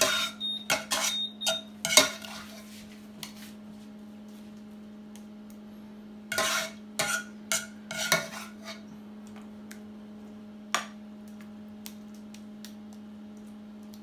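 Wooden spoon scraping and knocking against a frying pan as the last of the meat sauce is scraped out, in two clusters of clattering knocks, the first right at the start and the second about six to nine seconds in, with one more knock near eleven seconds. A steady low hum runs underneath.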